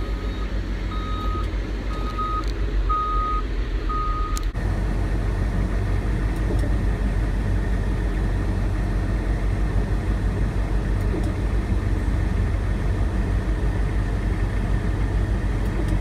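Work truck's engine running, heard from inside the cab, with a backup alarm beeping about once a second for the first four seconds. After a sudden change the engine carries on steadily, under an even rushing noise.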